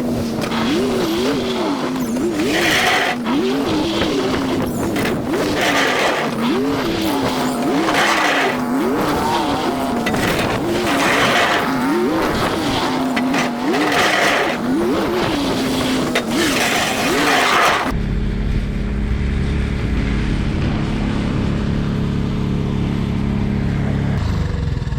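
An engine revs up and down over and over, about once a second, over a rushing noise as it works through deep snow. About 18 seconds in it cuts to a steady, duller engine idle.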